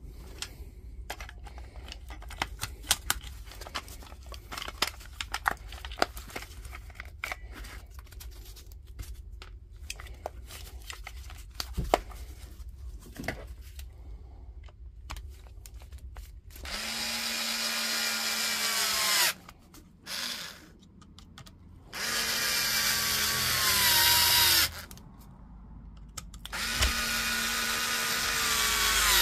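Small clicks and knocks of the battery case parts being handled and fitted, then a cordless screwdriver runs three times, about two and a half seconds each, driving the TX10 Torx screws that close the DeWalt 18V battery case. Its whine drops in pitch as each run ends.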